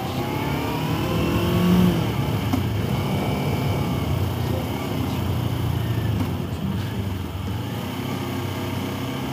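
Sport motorcycle engine running under way, its pitch rising and falling with the throttle, under a steady rush of riding noise.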